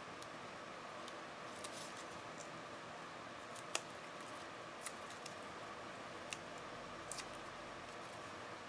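Faint scattered ticks and light rustles of small paper pieces being handled as the backing papers are peeled off foam dimensionals, over a steady low room hum.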